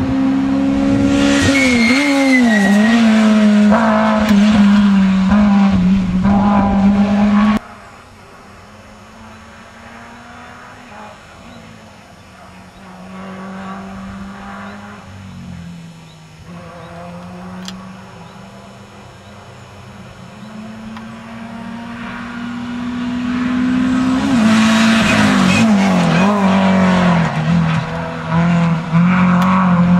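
Rally cars at full throttle on a special stage. A loud engine passes close with its note dropping in steps, and the sound cuts off suddenly about seven and a half seconds in. After that a quieter car is heard, growing steadily louder until it passes close near the end, its note again dropping in several steps.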